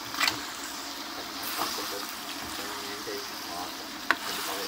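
Meat frying in a metal wok with a steady sizzle while a metal ladle stirs and scrapes it, clinking sharply against the wok about a quarter-second in and again near the end.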